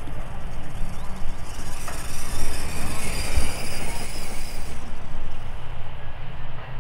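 High-pitched electric motor whine of a WLtoys 124019 RC truggy at speed on a speed run, rising and then cutting out about five seconds in as the car passes. Under it runs a steady low rumble.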